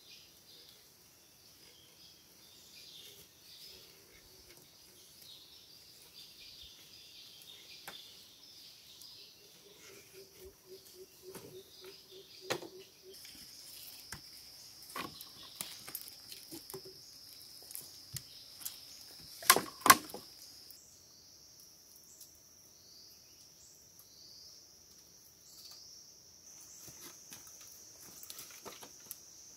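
Insects drone steadily at a high pitch while bamboo poles are handled, with scattered light knocks and two loud, sharp clacks close together about twenty seconds in.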